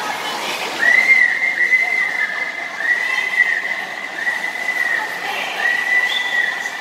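A high whistle sounding in a string of long blasts, about one a second, each bending slightly in pitch, over a steady background hubbub.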